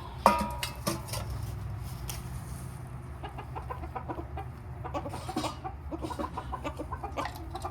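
Chickens clucking over and over in short calls. A single sharp knock with a brief ring comes about a quarter second in and is the loudest sound.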